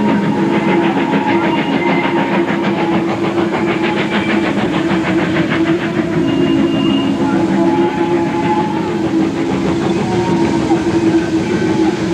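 Steam train running past on the rails: a steady rumble with regular beats and a few sustained tones over it.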